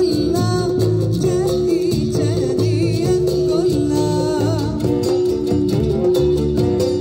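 A live band playing Cypriot/Greek music: a wavering melody, sung or played, over plucked strings and a steady bass line.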